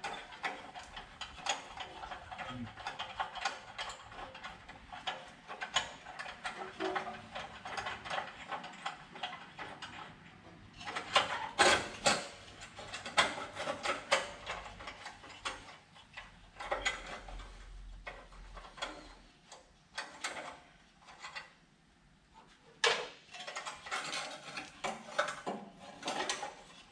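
Hand tools working on a truck's exhaust: rapid ratchet-like clicking, then several sharp metal knocks and clanks. The knocks are loudest about eleven seconds in and again around twenty-three seconds.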